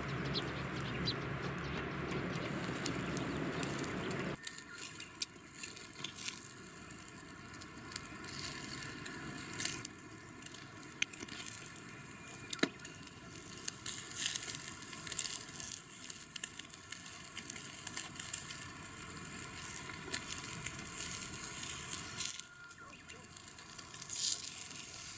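Beef sizzling on the wire grate of a mini shichirin charcoal grill, a steady hiss with scattered pops and crackles.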